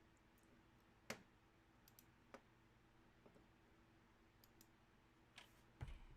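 Near silence with a few faint, scattered clicks, the clearest about a second in, and a small knock near the end.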